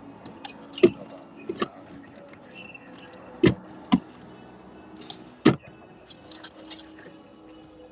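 Handling noises inside a car's cabin as the front seat and console are searched: scattered clicks, rattles and sharp knocks. The loudest knocks come about a second in, twice around three and a half to four seconds in, and once about five and a half seconds in, over a low steady hum.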